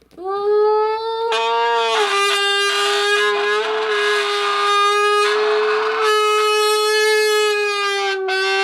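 A soda can being blown into to imitate a sports-car engine: one long, buzzy, horn-like note held steady, breathier in the middle, dipping slightly in pitch near the end.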